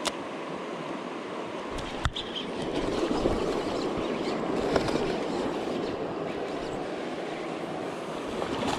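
Steady rush of fast-flowing river water running over a rock bar, swelling louder for a few seconds in the middle. A single sharp knock about two seconds in.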